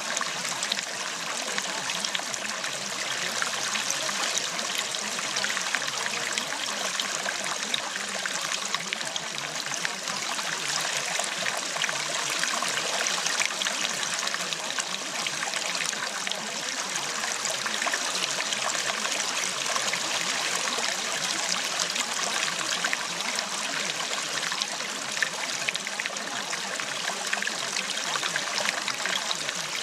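Steady running water, like a trickling stream, flowing evenly without change.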